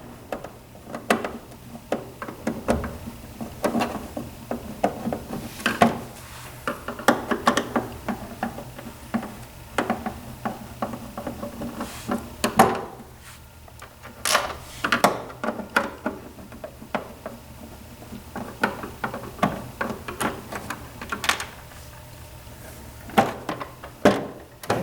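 Irregular clicks, taps and knocks of a Phillips screwdriver and hands working screws out of a massage chair's rear plastic shroud.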